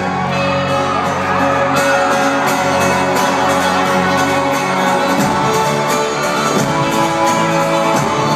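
Live folk-rock band playing loud in a large hall, with acoustic guitar, banjo and upright double bass and a steady beat.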